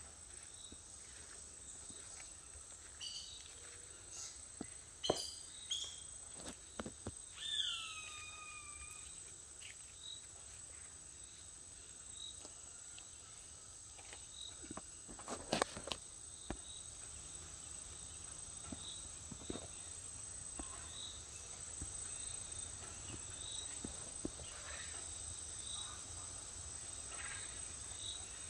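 Fiery-billed aracaris calling: short high notes repeated at an even, slow pace, with a pair of calls sliding down in pitch about eight seconds in. A steady high insect drone runs underneath, and a single sharp knock comes about halfway through.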